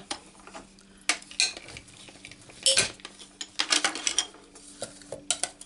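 Plastic cutting plates for a crank die-cutting machine clacking and clattering on the tabletop as they are handled and set down, in irregular knocks with a busier run of clicks about two-thirds of the way through.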